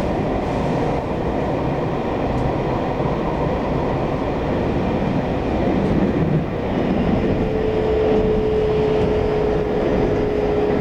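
Taiwan Railways EMU800 electric multiple unit running, heard from inside the passenger car: a steady rumble of wheels and running gear. About seven seconds in, a steady mid-pitched tone joins it as the train comes into a station stop.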